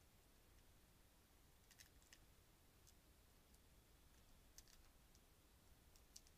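Near silence with faint, irregular clicks and crunches from a raccoon eating seed off a patio table.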